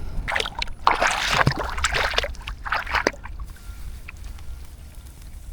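Pond water splashing and sloshing in several irregular bursts over the first three seconds as a fish trap is handled, then quieter, over a steady low rumble.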